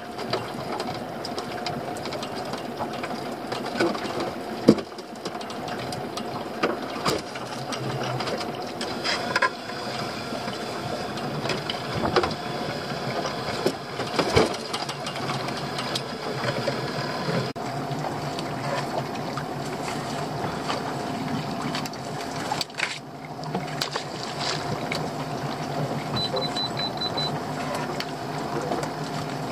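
A small fishing boat's engine running steadily, with scattered knocks and rattles from a lobster pot being handled against the gunwale.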